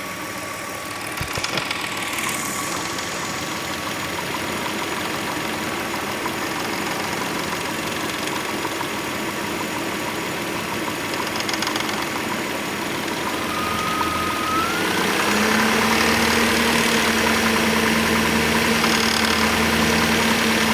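2003 Hyundai Tiburon engine idling with a rattle from the timing-belt area that comes and goes, which the owner suspects is the timing belt tensioner or the belt itself. About three quarters of the way through, the sound grows louder and a steady hum joins in.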